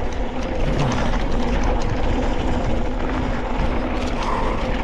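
Steady rush of wind on the microphone over the tyre noise and rattling of a mountain bike running downhill on a dirt trail, with small clicks and knocks throughout.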